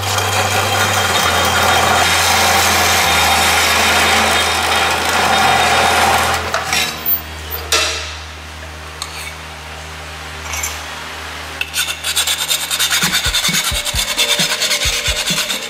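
Cold saw, a slow toothed circular metal-cutting saw, cutting through exhaust tubing for about six seconds over the steady hum of its motor, which keeps running after the cut with a few knocks. Near the end, a hand file rasps back and forth on the cut pipe end, about three strokes a second.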